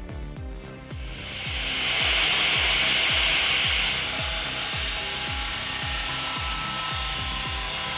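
A power saw cutting through wood: a steady, rasping cutting noise that starts about a second in, is loudest for a couple of seconds, then carries on a little quieter, over background music with a steady beat.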